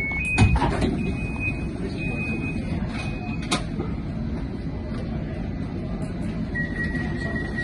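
Inside a CAF Urbos 100 tram standing with its low steady rumble, while an electronic warning beeps about once a second for the first three seconds or so. A thump comes just after the start and a click at about three and a half seconds, and a continuous high tone sounds near the end.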